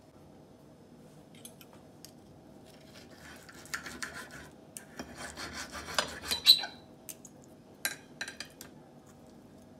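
Knife and fork scraping against a plate as a steak is cut open, in two stretches of scraping about three and five seconds in, with several sharp clinks of metal on the plate.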